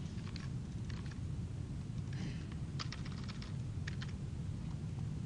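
Typing on a computer keyboard: scattered key clicks with a quick run of several strokes a little past the middle, over a steady low hum.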